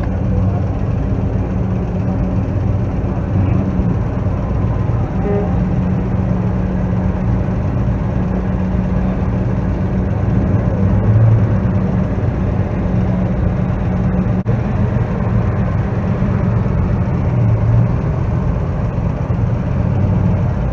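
Old cars' engines running at low speed as the cars drive slowly past one after another, with a steady low hum throughout. It swells a little about halfway through and again near the end as cars pass close by.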